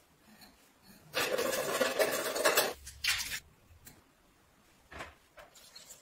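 Hand tap in a tap wrench cutting a thread in cast metal: a harsh rasping scrape lasting about a second and a half, then a shorter one, followed by a couple of light knocks.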